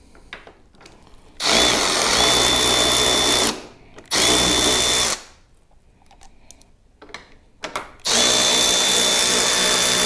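Milwaukee cordless ratchet running in three bursts, about two seconds, one second and two seconds long, each with a steady high whine, spinning nuts off the fairing's mounting studs on a Harley-Davidson touring bike. Light metallic clicks come between the bursts.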